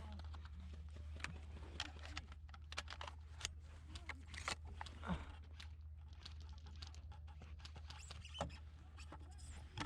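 Scattered soft clicks and rustles at an irregular pace over a steady low hum.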